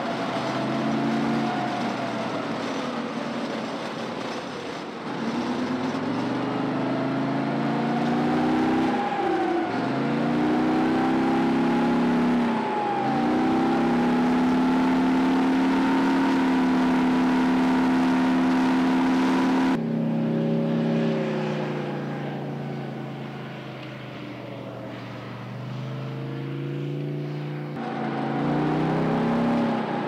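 Type 90 tank's ten-cylinder two-stroke diesel engine running under way, heard from on the hull, its whine rising and falling as the tank speeds up and slows. The sound changes abruptly twice, about two-thirds of the way in and again near the end.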